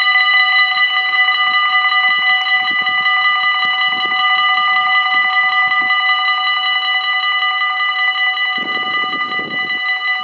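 Two electric level-crossing bells ringing continuously in rapid strokes, warning that the half-barriers are coming down for an approaching train. A low rushing noise joins near the end.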